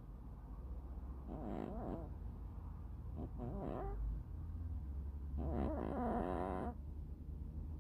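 Cat snoring: a pitched, wavering snore comes with each breath, three times, about two seconds apart. The last snore is the longest.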